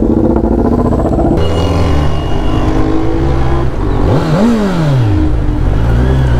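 Motorcycle engine running while riding, its note changing about a second in, with wind hiss. A quick rev rises and falls about four seconds in.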